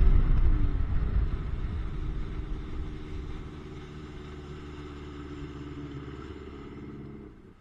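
Two-stroke jet ski engine running under way, its pitch dropping at the start as the throttle eases off, then running steadily at lower revs before the sound cuts off suddenly near the end.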